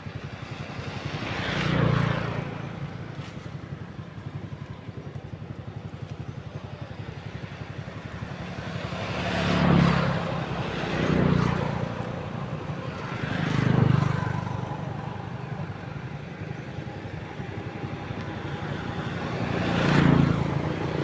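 Road vehicles passing one after another, five pass-bys in all, each swelling and fading over a second or two, with a steady low hum underneath.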